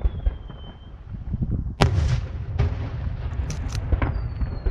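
Aerial fireworks display: a rapid run of low launch and burst thumps, with one sharp loud bang about two seconds in and a few crackling pops. Near the end, a whistle falling in pitch begins.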